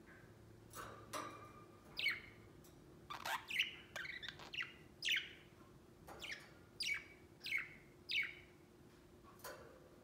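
Budgerigar chirping: a string of about a dozen short, quick chirps, most falling in pitch, coming every half second or so.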